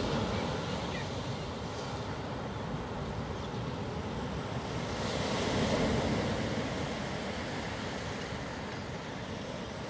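Ocean surf breaking and washing over a rocky shore, with wind buffeting the microphone; a wave swells louder about five to six seconds in.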